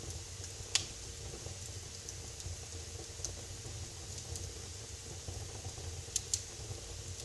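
Wood fire crackling in a fireplace: a steady low rumble with scattered pops, a sharp one just under a second in and two in quick succession near the end.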